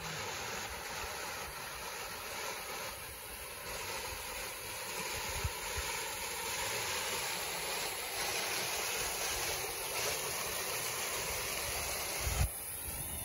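Water spilling over a low concrete weir and rushing down a rocky riverbed in small falls: a steady rushing hiss. A few low thumps come near the end.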